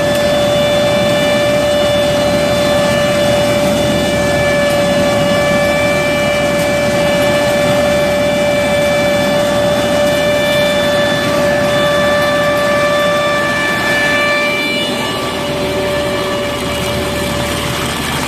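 Tractor-drawn Hasatsan H 1800 hazelnut harvester running as it sweeps up the ground: a loud, steady machine noise with a steady whine over it.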